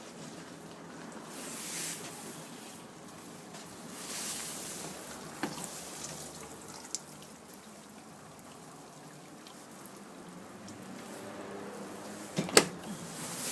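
Asko D3110 dishwasher running, with water swishing and spraying inside it in swells. A sharp knock sounds near the end.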